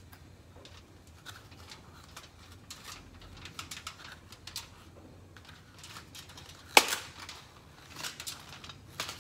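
Knife scoring the raw flesh of a butternut squash half on a foil-lined baking sheet: a run of faint irregular clicks and taps as the blade cuts in and the tip strikes the foil-covered pan, with one sharp louder click about seven seconds in.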